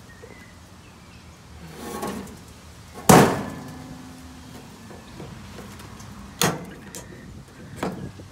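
Hand pop-rivet gun being squeezed on a steel rivet, with one loud sharp snap about three seconds in as the rivet's mandrel breaks off, leaving a short metallic ring. Two lighter clicks of the tool follow near the end.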